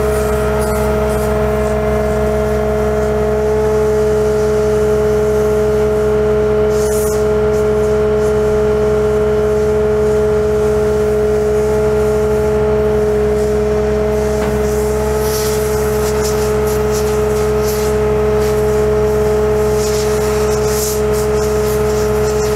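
Bucket truck's Cummins ISC diesel engine running steadily, driving the hydraulic pump for the Hi-Ranger aerial boom, with a loud, unchanging high whine over the engine's low hum while the boom is worked.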